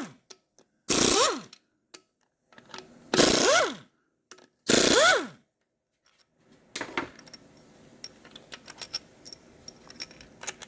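Power wrench spinning out the 13 mm front pump bolts of a 4L60E automatic transmission in three short bursts, each whining up in pitch and winding down as the trigger is released. Light metallic clinks of bolts and parts being handled follow in the second half.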